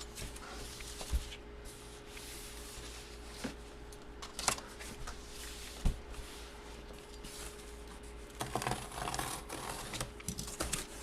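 Hands handling a cardboard box and packaging: scattered light knocks and taps, then rustling and scraping from about eight and a half seconds in, over a faint steady hum.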